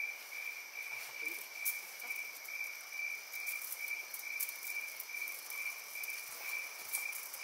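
An insect calling in the forest: one steady high-pitched chirp repeating about two to three times a second, with a few faint clicks over it.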